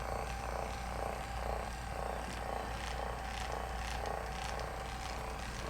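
Electric massager buzzing steadily against the body, its hum swelling and fading about two to three times a second.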